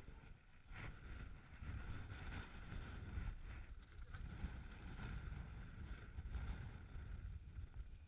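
Wind buffeting the microphone of a handlebar-mounted action camera, an uneven low rumble that rises and falls throughout.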